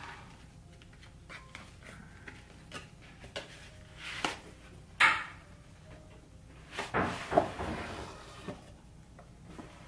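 Cardboard box being opened by hand: scattered rustles, scrapes and soft knocks as the flap is lifted and the inner sleeve and carrying case slide out, with a sharper knock about five seconds in.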